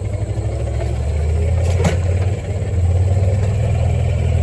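Outdoor unit of a ductless mini-split air conditioner running with a steady low hum. There is one brief click about two seconds in.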